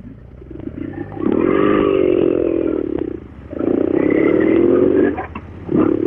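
Royal Enfield Interceptor 650's parallel-twin engine pulling away under throttle: two strong pulls with a brief break between them just after three seconds in, then another rise near the end.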